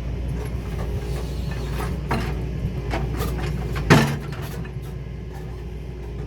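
Excavator engine running steadily, with a few sharp knocks as rocks are handled and set in place, the loudest about four seconds in.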